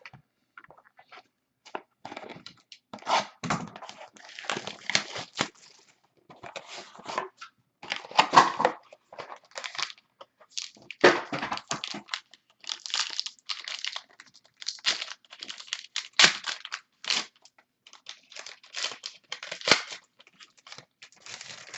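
Plastic trading-card pack wrapping being torn open and crinkled in irregular crackling bursts.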